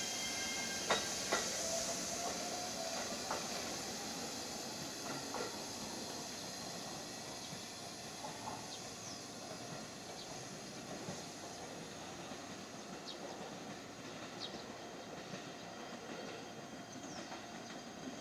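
JR Shikoku 7200 series electric train standing at a station platform, giving a steady hiss that slowly fades. Two sharp clicks come about a second in, and faint short high squeaks sound now and then.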